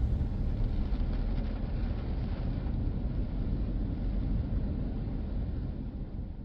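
A car driving on a wet road in the rain: steady engine and tyre noise that fades out near the end.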